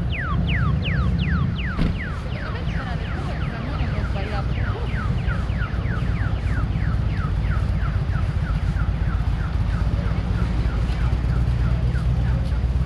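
Audible pedestrian crossing signal chirping rapidly, a falling tone repeated about four times a second, the signal that the light is green for walkers. The chirps grow fainter later on, over a steady low rumble of street noise.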